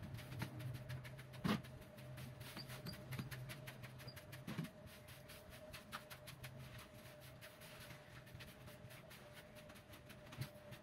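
Faint, scratchy scraping of a long-handled tool worked over a bed of soil and grit, with a couple of sharper knocks, over a faint steady hum.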